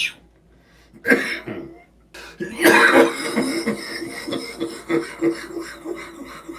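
A man's coughing fit. One cough about a second in, then a loud burst of harsh coughing that trails off into a run of weaker, repeated coughs.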